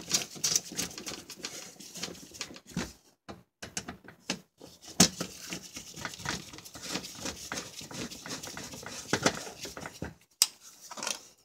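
Screwdriver tightening the fasteners of a car's underbody plate: irregular clicking and scraping as the screws are turned, broken by a few short pauses.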